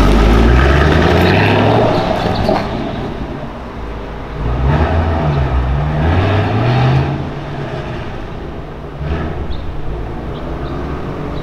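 Ford Shelby GT Mustang's 4.6-litre V8 accelerating away, revving up and dropping back several times as it shifts through the gears, fading and then swelling again near the end.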